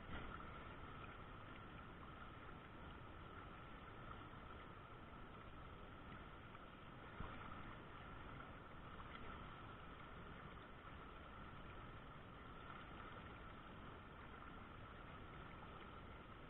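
Faint, steady rush of river current running over a rocky riffle, with a small knock near the start and another about seven seconds in.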